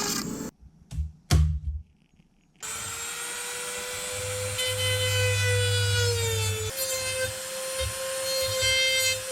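Handheld electric power tool starting up and running with a steady high whine, its pitch shifting slightly a few seconds after it starts. Two knocks come first, after a brief drop to near silence.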